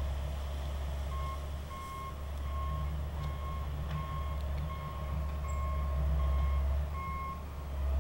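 John Deere 450 crawler dozer's diesel engine running steadily while its reverse alarm beeps about ten times, evenly spaced, from about a second in until near the end: the dozer is backing up.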